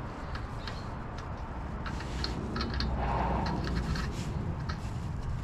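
Thread die being turned by hand on a car's damaged axle threads: scattered small metallic clicks and scraping. A low steady rumble runs underneath.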